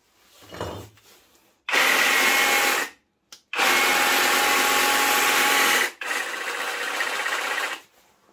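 Parkside cordless reciprocating saw running unloaded in three trigger pulls, the last one a little quieter. It makes an awful sound that the owner puts down to a sheet-metal part vibrating.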